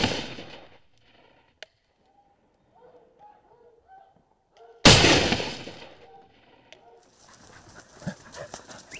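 A shotgun shot about five seconds in: a sharp crack whose report dies away over a second and a half. At the start, the report of an earlier shot is still fading.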